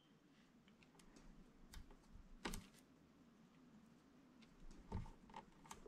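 Faint, scattered light taps and clicks of a stamp and ink pad as snowflakes are inked and stamped in white pigment ink, the clearest taps about two and a half and five seconds in.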